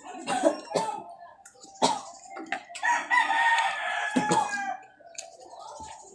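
A rooster crows once in the middle, a long pitched call of about two seconds, over short clicks and smacking sounds of mussels being eaten by hand.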